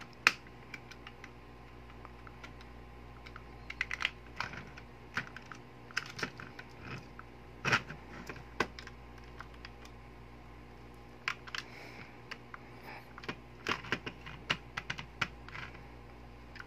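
Irregular small clicks and knocks of plastic and metal parts being handled and pressed together while a spring-type airsoft M1911 pistol is reassembled, with a sharp click just after the start.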